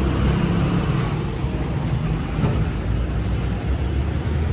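Steady road-traffic noise with motor vehicle engines running, a low rumble throughout.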